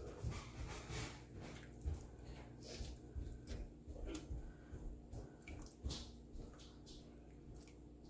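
Soft wet splashes and squishes as raw albacore fillets are slid by hand into a pot of hot broth, over a faint steady hum.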